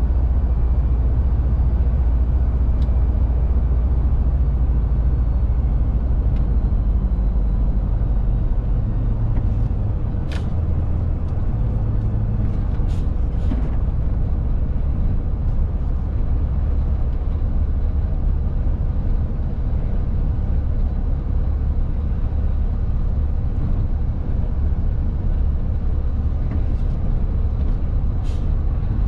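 Shacman X3000 heavy truck heard from inside the cab while driving: a steady low engine drone with road noise. A few brief sharp clicks or hisses come about ten and thirteen seconds in and again near the end.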